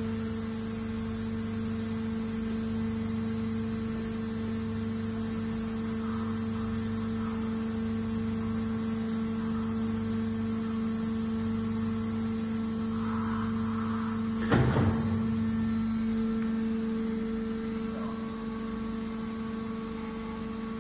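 Amada Vipros 255 CNC turret punch press standing powered on and idle, giving a steady electrical hum with a high hiss over it, which fades about 16 seconds in. A single short clunk is heard about 15 seconds in.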